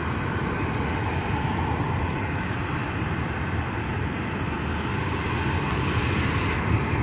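Homemade gasifier burning paper with its air turned all the way up, a steady rushing noise of forced air and fire, heaviest in the low end: the paper is gasifying hard.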